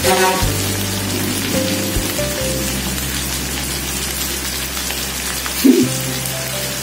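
Sliced jengkol sizzling steadily in a wok of seasoning, with background music playing over it. There is a short louder sound near the end.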